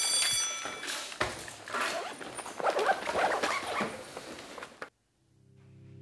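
A school bell rings on briefly and stops, then come the sounds of students packing up in a classroom: rustling, knocks and scraping of bags, pencil cases and chairs. This cuts off suddenly about five seconds in, and piano music fades in.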